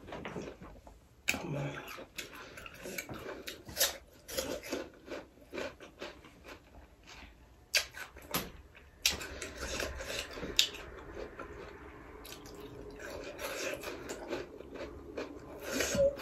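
Close-up wet mouth sounds from eating: an irregular string of lip smacks and sucking clicks as fingers are licked clean, with soft chewing.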